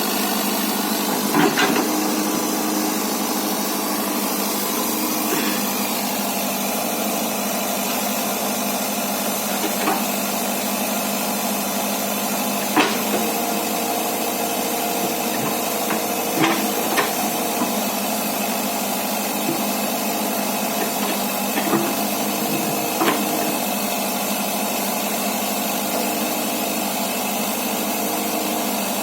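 Excavator's diesel engine running steadily, with sharp short knocks now and then, about seven in all.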